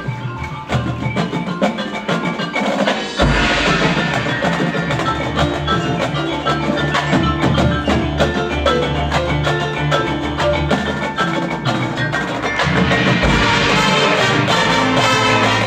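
Marching band field show music led by the front ensemble's mallet percussion (marimba, xylophone and bells) playing quick runs of notes, with a deep low part coming in about three seconds in and the sound growing fuller near the end.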